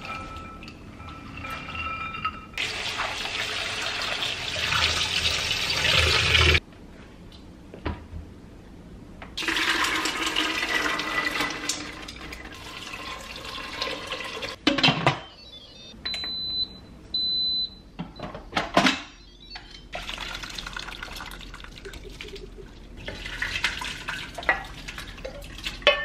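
Water running and pouring in several long stretches that start and stop abruptly, including water poured from a pitcher into an Instant Pot's stainless-steel inner pot. Two short high electronic beeps come about two-thirds of the way in.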